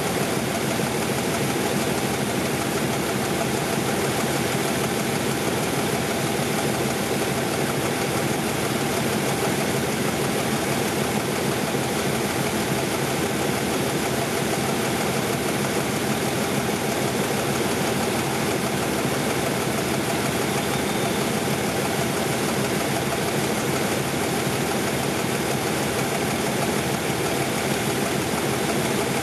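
Diesel locomotive engine idling steadily.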